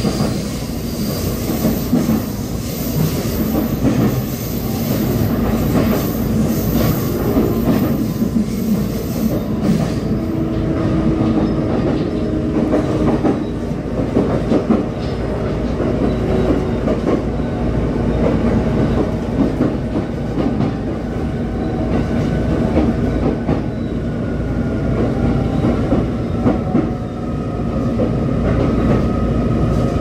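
JR East EV-E301 battery-electric train running, heard from inside the car: a steady rumble of the wheels on the rails. A faint whine slowly falls in pitch over the second half.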